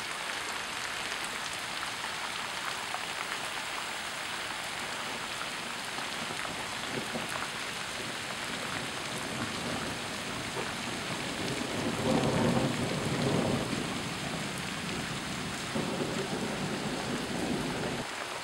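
Steady rain and flash-flood water running across a desert street, with two louder rumbling stretches about twelve and sixteen seconds in.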